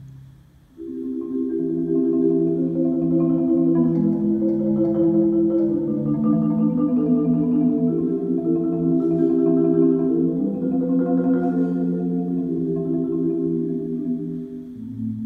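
Concert marimba played with four mallets: after a short pause, sustained rolled chords begin about a second in and carry on through a slowly moving progression.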